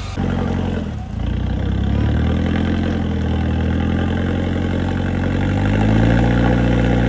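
Pickup truck's engine working under load as it climbs a muddy trail. The revs dip about a second in, then climb steadily and ease slightly near the end.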